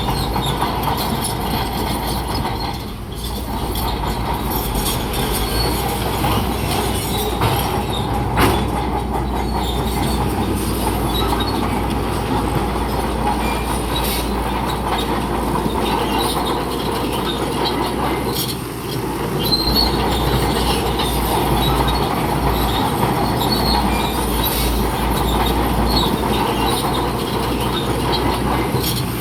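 Crawler bulldozer working: diesel engine running under load with its steel tracks clanking and giving short high squeaks here and there. A single sharp knock comes about eight seconds in.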